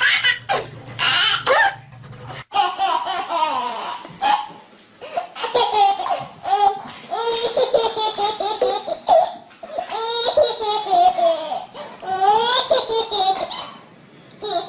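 A baby laughing hard in repeated bursts of belly laughs.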